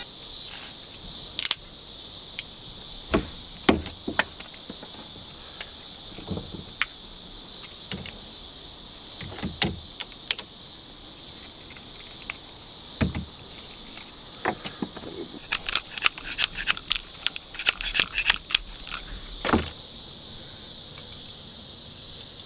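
Scattered sharp clicks, taps and knocks of parts and hardware being worked into a pickup truck door, with a dense run of rattling clinks from about 15 to 20 seconds in. Crickets chirp steadily underneath.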